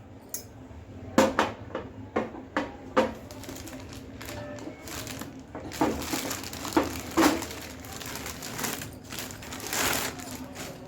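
Unboxing handling noises: packaging crinkling and rustling, with a series of sharp taps and knocks as the stove and its parts are moved about. A longer stretch of rustling comes near the end.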